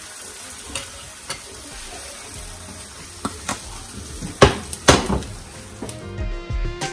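Bánh xèo batter sizzling in a hot frying pan, with a few light clicks and two loud clanks of the pan about 4.5 and 5 seconds in as it is swirled and set back on the stovetop. Guitar music comes in near the end.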